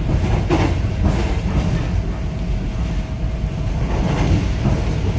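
Subway train running, heard from inside the carriage: a steady low rumble with a faint steady hum, and a few brief clacks of the wheels.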